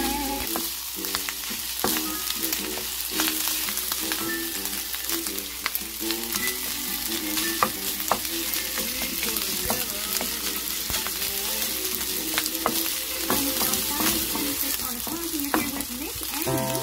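Rice and anchovies sizzling in oil in a hot frying pan while a wooden spatula stirs and scrapes them, with many short clicks of the spatula against the pan.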